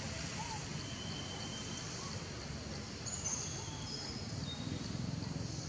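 Forest ambience: insects buzzing steadily with a few brief bird chirps, over a low rumble.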